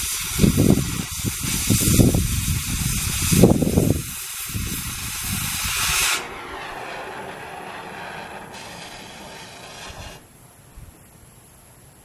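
Oxy-acetylene cutting torch cutting through steel: a loud rushing hiss with an uneven low rumble. It stops about six seconds in, leaving a quieter hiss that cuts off around ten seconds in.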